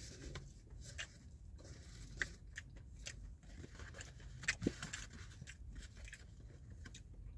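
Faint scattered clicks and soft rustles from handling takeout chicken wings and their container, with a few sharper ticks a couple of seconds in and again past the middle.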